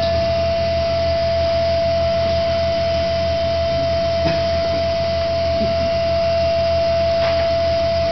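Eurorack modular synthesizer holding a steady drone: one sustained mid-pitched tone over a low hum, unchanging throughout.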